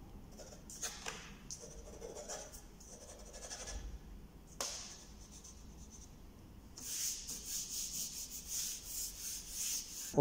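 Pencil shading on drawing paper: faint scratchy strokes, scattered at first, then a quick, dense run of back-and-forth strokes in the last few seconds. A single light tap about halfway.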